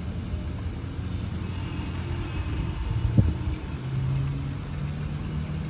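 Steady low rumble of a motor, like running engine or traffic noise, with one short low thump a little after three seconds in.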